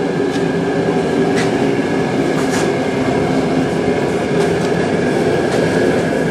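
Air compressor running steadily, a loud, even mechanical drone with a low hum and a few light clicks.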